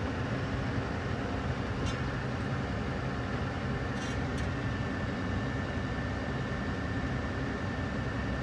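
Tractor engine running steadily, heard from inside the cab, while the front loader sets down a bale. A faint, thin, steady whine joins about four seconds in, with a few light clicks.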